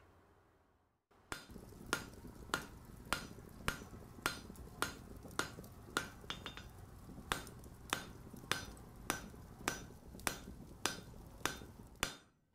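Hammer striking an anvil in a slow, even rhythm, a ringing blow about every 0.6 seconds over a low steady rumble, starting about a second in.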